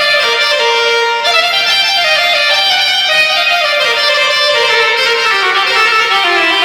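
Korg TR keyboard playing a violin-like tone: a single melody line that glides between notes and steps gradually down in pitch.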